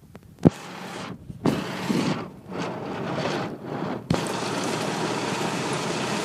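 Golf cart driving along a dirt road, heard from on board: steady running and tyre noise with wind on the microphone, dipping briefly a few times, and two sharp knocks, one about half a second in and one about four seconds in.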